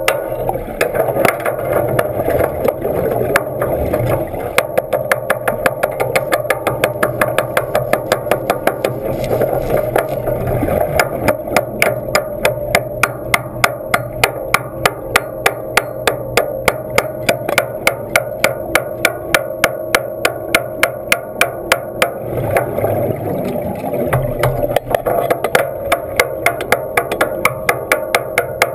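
Underwater in a diving tank: a rapid, even train of sharp clicks, about four a second, over a steady hum.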